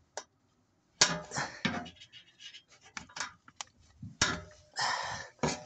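Hand tool clinking and scraping against metal while working a hard-to-reach fastener on a hybrid battery pack's casing: a sharp knock about a second in, then scattered clicks and scrapes, with a longer scrape near the end.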